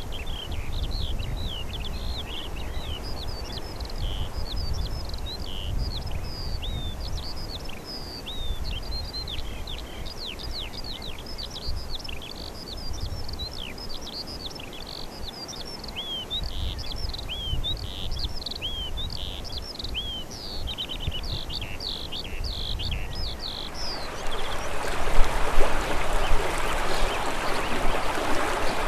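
A chorus of small birds chirping: many short, quick high calls overlapping one another over a low rumble. Near the end this gives way abruptly to the loud, steady rush of a stream.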